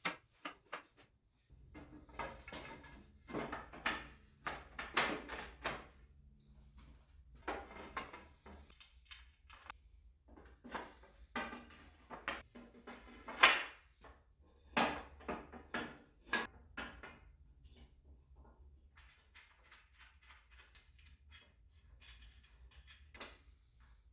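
Irregular knocks, clatter and scraping of objects being handled and moved about, in uneven clusters with the sharpest knock about halfway through, over a low steady hum that starts a second or two in.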